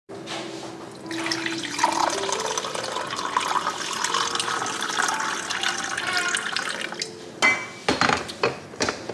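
Hot coffee poured from a glass carafe into a ceramic mug, a steady splashing stream whose pitch climbs as the mug fills. Near the end comes a quick run of knocks as the carafe is set back onto the coffee maker.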